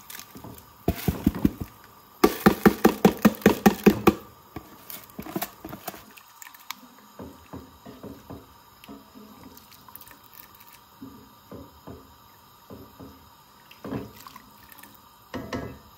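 Rice being worked into a pot of boiling stock: a quick run of loud knocks against the pot about two to four seconds in, then softer scattered taps and scrapes of a wooden spoon stirring the rice through the liquid.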